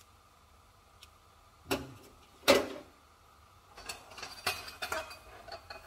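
Metal kitchen clatter at a wok: two sharp clanks a little under a second apart, the second the loudest, then about two seconds of lighter clinking and rattling of utensils.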